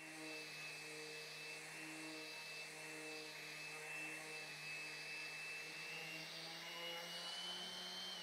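Random orbital sander with 120-grit abrasive running on a resin-and-timber tabletop: a steady motor whine over a low hum. Near the end the whine rises slightly, then starts to fall as the sander winds down.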